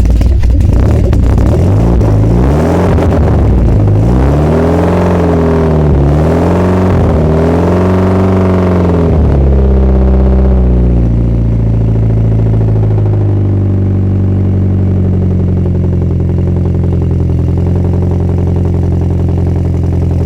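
Mitsubishi Lancer Evo X's turbocharged 2.0-litre four-cylinder running just after a cold start: the revs rise and fall several times, then settle into a steady idle about ten seconds in.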